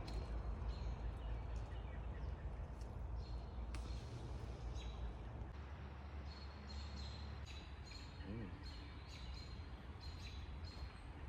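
Woodland ambience: songbirds chirping in short repeated notes over a steady low rumble.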